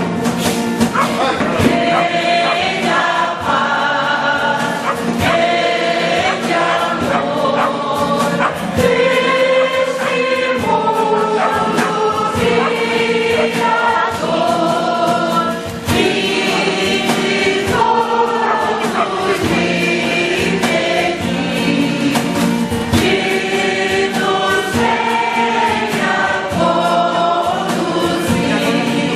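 A choir of men and women singing, with held notes in phrases that rise and fall in pitch, and scattered small clinks and knocks.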